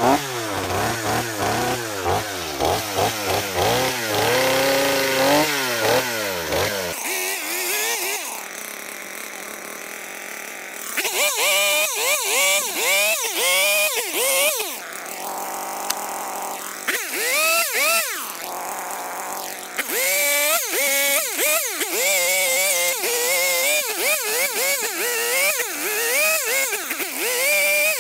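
Stihl 250 two-stroke chainsaw with a dime-tip carving bar cutting into a cedar blank, revving up and down over and over. It drops back to a lower steady idle for a few seconds about seven seconds in and again around the middle.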